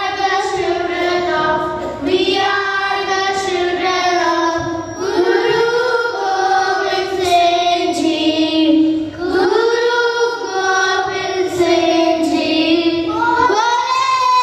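A child singing a melody in long held notes, in phrases of about two to four seconds each.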